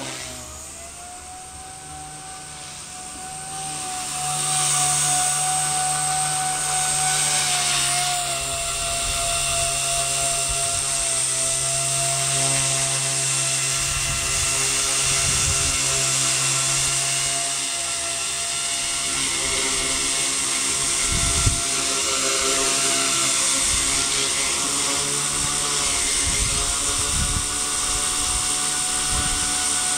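Blade 130X micro RC helicopter's electric motors and spinning rotors whining steadily in flight, growing louder about four seconds in as it comes close. The whine carries on at a steady pitch after it sets down with the rotors still spinning, with a few low thumps mixed in.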